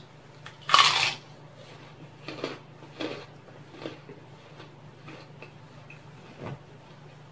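A loud crunch as a kerupuk (Indonesian cracker) is bitten about a second in, followed by several smaller crunches as it is chewed. A steady low hum runs underneath.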